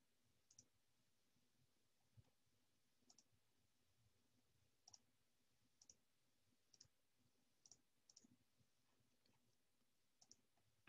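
Near silence with faint, scattered computer mouse clicks, about eight of them, a second or so apart.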